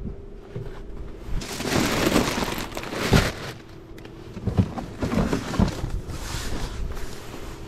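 Irregular crunching and rustling noises in two swells, one beginning about a second and a half in and another about five seconds in.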